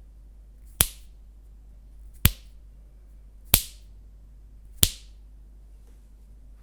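Four separate keystrokes on a mechanical keyboard with lubed Gateron Milky Brown tactile switches: four sharp clacks, evenly spaced about a second and a quarter apart.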